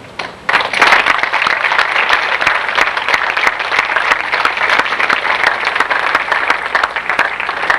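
Audience applauding in a school auditorium, dense clapping that starts about half a second in and tapers off near the end.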